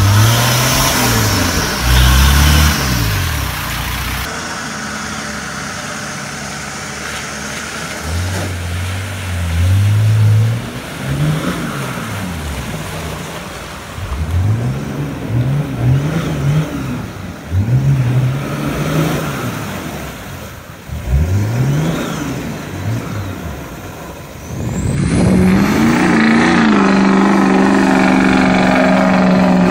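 Toyota Land Cruiser 60-series engine revving in repeated bursts as it crawls through a flooded, muddy track, the pitch climbing and falling with each blip of throttle. About 25 seconds in, this changes suddenly to a pickup truck's engine held at high revs as it ploughs through muddy water, throwing up spray.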